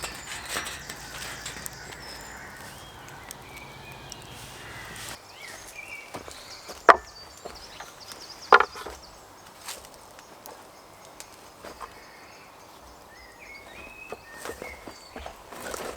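Two sharp chops into wood about a second and a half apart, with a few lighter knocks around them.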